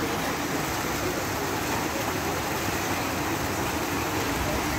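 Row of small fountain jets splashing into a shallow pool: a steady, even rush of water.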